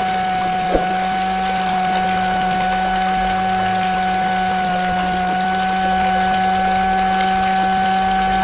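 Small DC motor whining at a steady pitch as it drives a homemade toy water pump through a rubber-band belt, over the steady splash of the pump's outflow onto the ground. A single short click sounds just under a second in.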